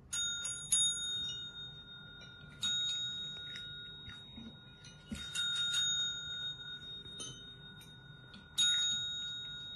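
Red desk service bells rung by cats, several bright dings that each ring on and slowly fade. Two come in quick succession at the start, one about a third of the way in, a quick cluster around the middle, and one more near the end.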